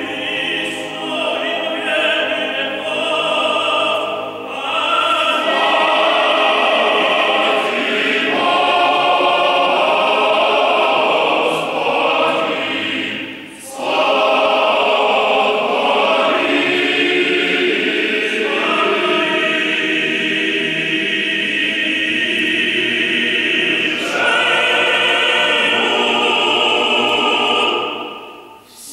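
Operatic tenor soloist and a male choir singing Russian Orthodox sacred music, the tenor's solo lines and the choir's chords alternating and overlapping in sustained phrases. The singing breaks briefly about halfway through.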